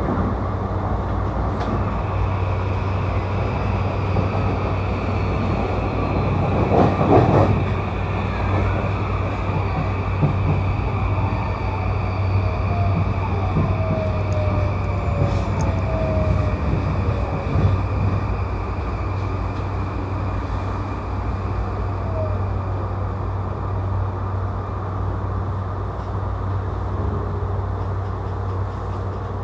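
Steady interior noise of a JR E235-series commuter train: a constant low hum with a faint high tone over it. There is a brief louder rumble about seven seconds in, and faint falling tones in the middle.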